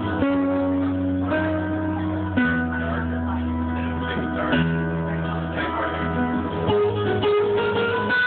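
Live instrumental music from a small band: a nylon-string acoustic guitar with a violin playing long held notes that step in pitch about once a second, over steady low bass notes that change twice.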